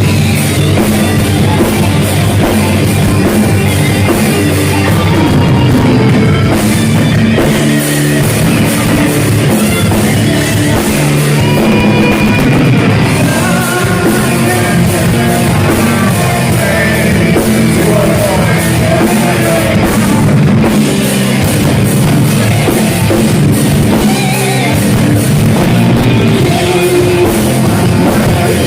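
Heavy metal band playing live: distorted electric guitars and a drum kit, loud and continuous.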